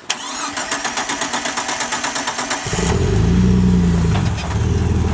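Jeep Wrangler's stalled engine being restarted: the starter cranks in a rapid even rhythm for about two and a half seconds, then the engine catches, revs up briefly and settles to idle.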